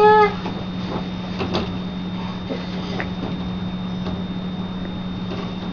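A baby's brief high-pitched vocal sound right at the start, then a steady low hum with a few faint soft knocks.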